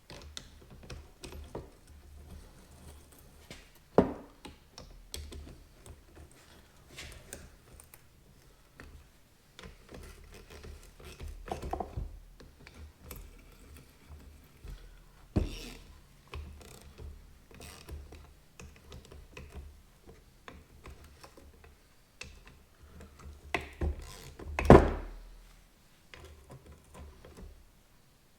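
Hands working on metal car parts: scattered clicks and clanks of parts and tools being handled and fitted, with a sharp knock about four seconds in, another about fifteen seconds in and the loudest near the end.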